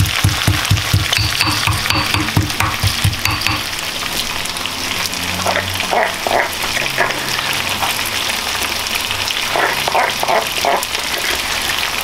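Chicken wings sizzling as they fry in a nonstick frying pan, stirred with a spatula. A few short clatters of kitchen things come around the middle and again near the end.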